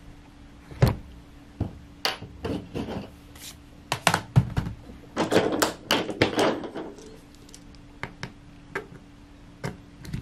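Handling knocks and clicks as a laptop is turned over and set down on a work mat, then a precision screwdriver is picked up and a bit clicked into it. The loudest knock comes about a second in, with a busier run of clicks around five to seven seconds and a few light clicks near the end.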